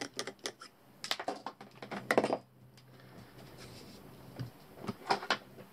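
Handling clicks and rattles as a DIY night-vision camera adapter is taken off a rifle scope's eyepiece: quick runs of sharp clicks in the first two and a half seconds, then a short handling knock near the end.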